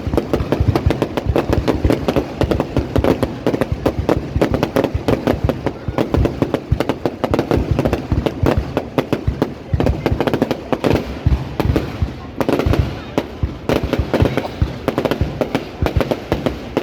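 Fireworks display: a dense, continuous barrage of bangs and crackles, many bursts a second, with no let-up.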